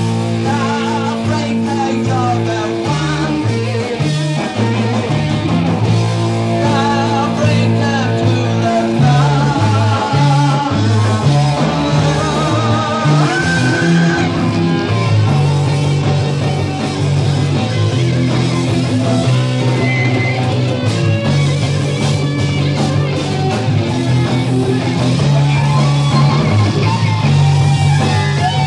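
Live heavy rock band playing: electric guitars, bass guitar and drums, with a bass line that keeps changing notes and wavering, bent higher notes above it. It was recorded on a portable tape recorder on a table in the middle of the room, so the quality is poor.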